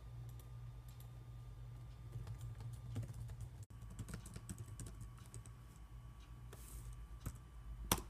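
Typing on a computer keyboard: irregular key clicks over a steady low hum, with one sharper click near the end.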